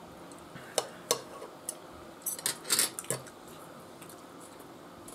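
Metal forks clinking and scraping on china dinner plates during a meal: a few separate sharp clicks in the first two seconds, then a busier run of clinks and scrapes about two and a half to three seconds in.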